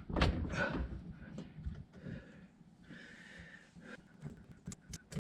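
Faint clicks and rustles of hands working on a cord clamp, with a person breathing.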